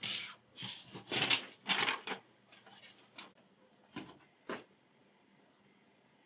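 A sheet of paper rustling and sliding in several short bursts as it is handled, then two light knocks about half a second apart, about four seconds in.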